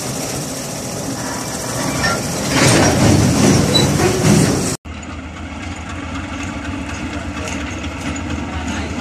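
Loaded container wagons of a freight train rolling past close by, wheels clattering on the rails and growing louder about two and a half seconds in. Just before halfway it cuts off abruptly to a quieter, steady diesel locomotive engine sound from further off.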